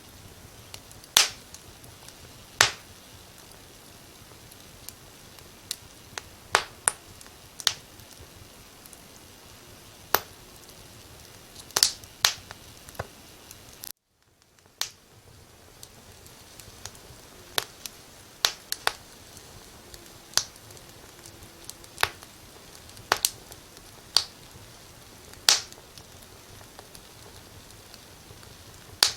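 Wood fire crackling in a fireplace: sharp, irregular pops and snaps over a soft steady hiss. About halfway through, the sound cuts out for around a second and then fades back in.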